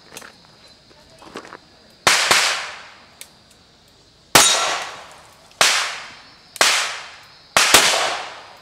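Seven pistol shots fired in a practical-shooting stage, one about every second, with the first two and the last two fired as quick pairs. Each shot is a sharp crack followed by a decaying echo.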